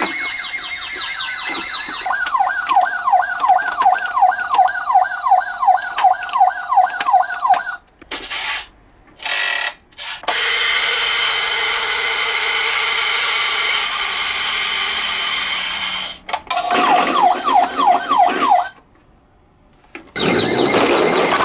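Emergency-vehicle siren sounds: a siren glides up into a steady wail, then switches to a fast yelp of rising sweeps, about two or three a second. A stretch of steady rushing noise follows, then a second short burst of yelp sweeps.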